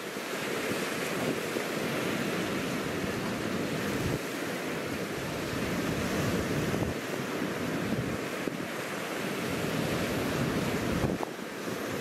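Sea waves breaking on a rocky cobble shore: a continuous surging rush that swells and eases as each wave comes in.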